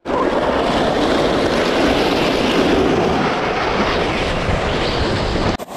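Rushing wind noise on the handheld camera's microphone, mixed with a sled scraping and sliding fast over icy, hard-packed snow down a hill; a steady loud rush that cuts off suddenly near the end.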